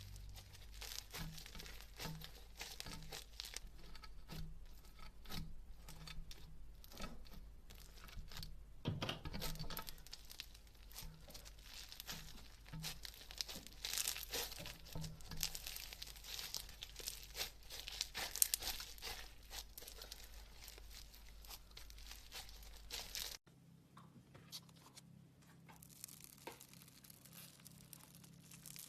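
Slime being handled, squeezed and stretched, with dense wet crackling and small clicks and pops of air bubbles; it turns quieter after a sudden cut about three-quarters through.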